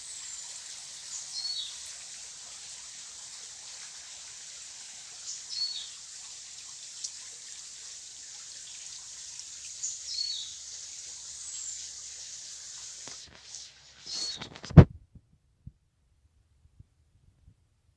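Rainforest ambience: a steady high hiss with a bird calling a short, high, falling note every few seconds. Near the end comes one loud thump, and the sound then cuts off to near silence.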